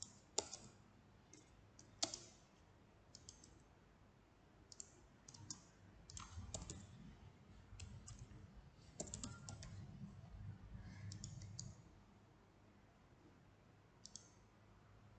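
Faint computer keyboard keystrokes and mouse clicks: scattered single clicks and short quick runs, the two sharpest in the first couple of seconds.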